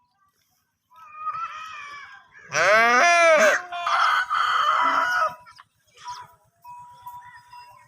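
Rooster crowing: a softer lead-in note about a second in, then a loud crow that starts clear and pitched and ends in a hoarse, drawn-out tail, followed by a few fainter calls.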